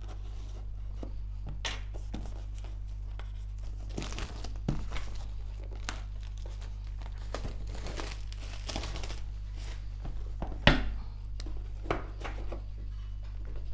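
Filament packaging being opened by hand: crinkling and tearing of plastic and cardboard, with scattered clicks and a sharp knock about ten and a half seconds in, over a steady low electrical hum.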